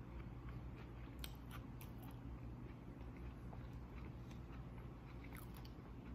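Faint chewing of a flour tortilla wrapped around Oreo cookies and ranch, with scattered small mouth clicks over a steady low hum.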